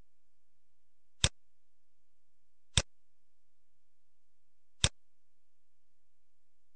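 Three sharp computer mouse clicks, spaced a second and a half to two seconds apart, against a quiet, steady background.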